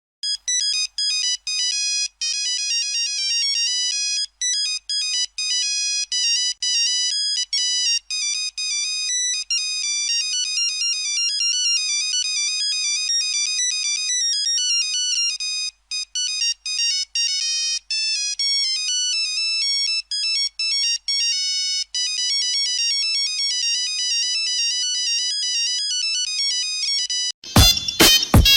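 Nokia mobile phone ringtone: a fast electronic melody of short, bright, thin notes that jump about in pitch, with no bass. About 27 seconds in it breaks off and a louder, different ringtone of rapid pulsing notes begins.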